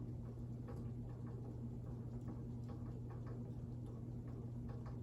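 Emerson Casablanca Classic ceiling fan running with a steady motor hum and irregular light ticking, as it shakes from a warped wooden blade.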